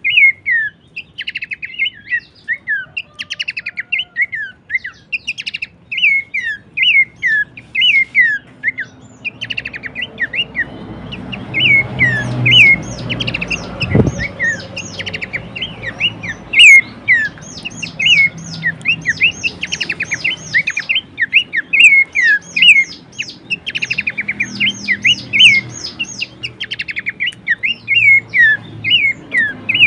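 Pelanduk semak babbler calling: a rapid, continuous series of short falling whistles mixed with fast buzzy trills, the bird's characteristic lure calls. A low background rumble comes in about a third of the way through, with a dull thump near the middle.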